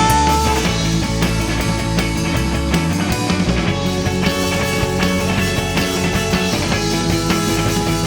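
Rock band playing an instrumental passage with no singing: full band with drums keeping a steady beat. A held note ends about half a second in.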